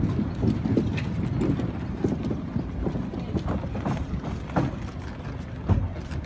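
Irregular hollow knocks on the wooden plank deck of a pier, from footsteps and a car's tyres rolling over the boards, over a low rumble. A few louder knocks come near the end.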